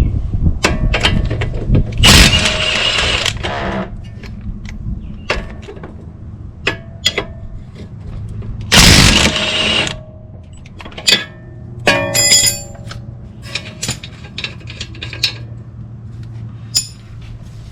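Impact wrench running in two bursts of about a second and a half each, loosening the two nuts at the bottom of a car's front strut. Short metallic clinks and knocks of tools and parts come between the bursts.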